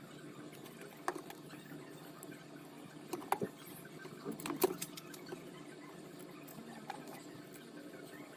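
A few light clicks and knocks, about a second in and then in two short clusters in the middle, over a steady low hum.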